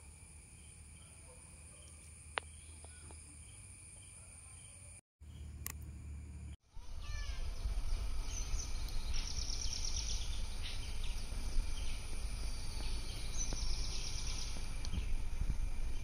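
Faint outdoor ambience with a single click, then, after a cut, louder outdoor ambience: repeated high chirping trills over a low rumble.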